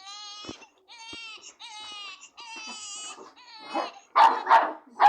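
A baby crying in a run of short, high, wavering cries, broken by hiccuping catches of breath. Near the end come two much louder, harsh sounds in quick succession.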